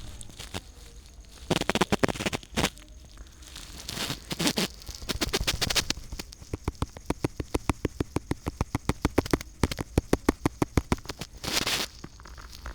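A series of sharp clicks and taps that settles into a fast, even run of several a second through the middle, broken by a few short bursts of rustling noise.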